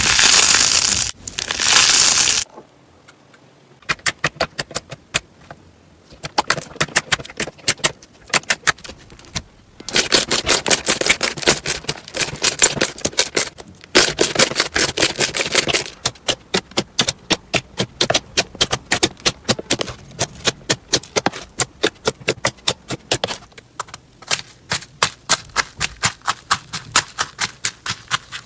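Crunchy slime being pressed and squished, giving trains of sharp crackling pops. It opens with two loud crunches, then comes a brief lull, and there are louder, denser crunching stretches near the middle.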